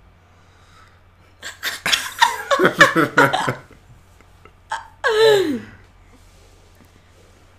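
A woman laughing hard for about two seconds. About five seconds in comes one short voiced sound that slides down in pitch.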